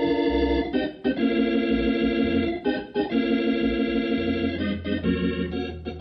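Organ music bridge marking a scene change in a radio drama: a series of held chords changing about once a second, with a low bass note coming in about four seconds in and the music fading toward the end.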